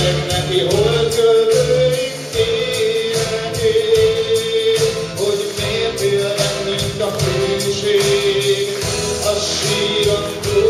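A man singing a slow song through a microphone, holding long notes, over amplified instrumental accompaniment with a steady beat.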